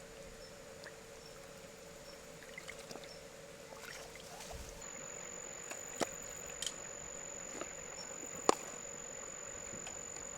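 Steady faint hiss with a few sharp clicks, the loudest about eight seconds in.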